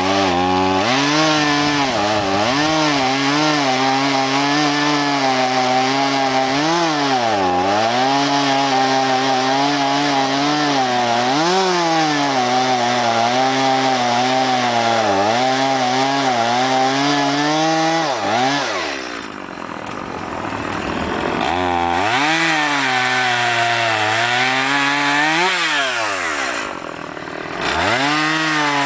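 Stihl MS-170 two-stroke chainsaw running at high revs while cutting through Douglas fir logs, its pitch sagging repeatedly as the chain loads up in the wood. Twice the throttle is let off and the engine falls to a lower, quieter note before revving back up.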